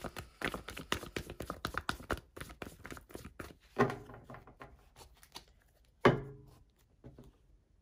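Tarot cards being shuffled by hand: a quick run of cards flicking and slapping together, then two single louder knocks about four and six seconds in as the deck is handled.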